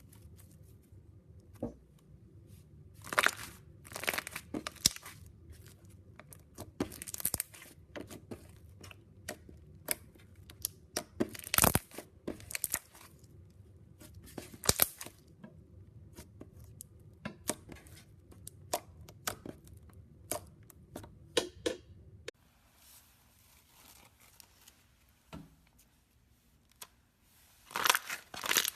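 Slime being pressed and squished, giving irregular bursts of sticky crackling and popping, with a quieter stretch in the last third before louder crackles return near the end.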